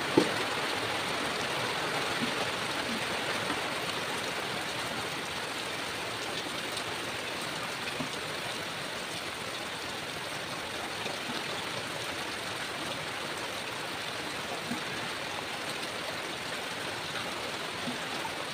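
Steady rush of water, with a sharp knock just after the start and a few faint clicks and knocks later on.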